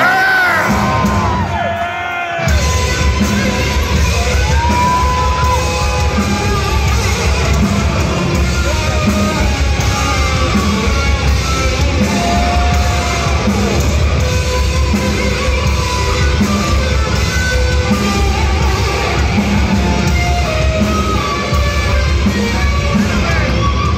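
Thrash metal band playing live at full volume: distorted electric guitars, bass and drums, with the full band crashing back in about two and a half seconds in after a brief thinner passage. Yells ride over the music.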